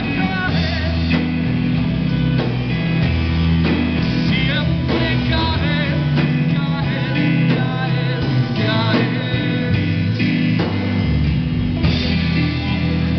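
Live rock band playing: electric guitars, keyboard and drum kit over a strong bass line, loud and continuous.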